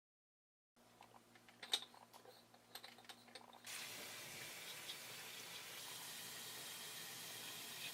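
Light clicks and taps of small parts being handled, then about four seconds in a tap starts running with a steady hiss of water.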